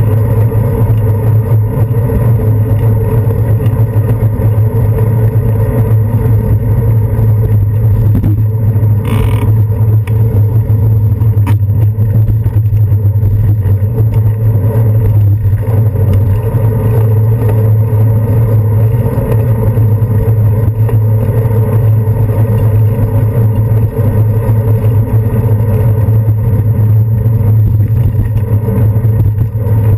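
Steady, loud rumble of a bicycle rolling over city pavement, heard through a handlebar-mounted GoPro Hero 2: road vibration and wind on the camera. There is a brief click about nine seconds in.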